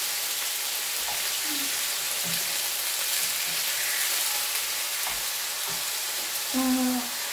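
Skinless chicken pieces sizzling as they fry in a frying pan, with a steady hiss, while a wooden spatula stirs and turns them, giving light scrapes and taps.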